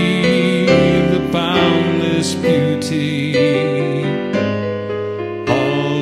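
A man singing a slow song, accompanying himself on a digital piano with chords struck every second or so; his voice glides up and holds wavering notes between the chords.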